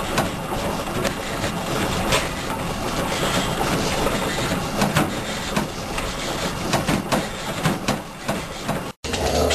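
Home exercise bike being pedalled: a steady mechanical whirring with scattered clicks and knocks.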